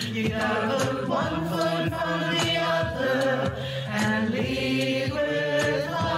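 A mixed choir of men and women singing a hymn together in parts, with held notes, assembled as a virtual choir from separately recorded singers.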